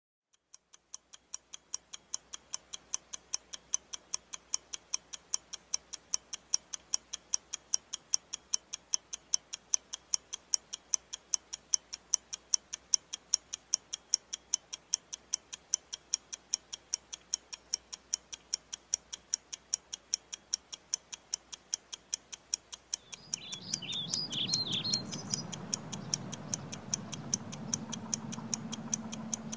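Steady, even ticking, about three ticks a second. About 23 seconds in, a low hum and a wash of background noise come in under it, with a few short bird-like chirps.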